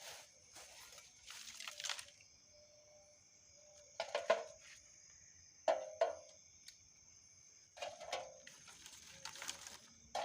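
Short knocks and rustles of camp gear being handled while a small camp stove is set up, coming in about six separate clusters. A steady high insect drone runs underneath.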